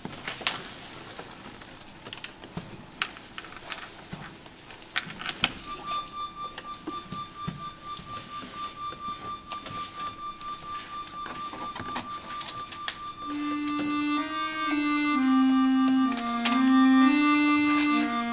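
Scattered small clicks and knocks, then about five seconds in an accordion starts a single high note and holds it steadily. About thirteen seconds in, a slow lower melody of held notes enters beneath it and the playing grows louder.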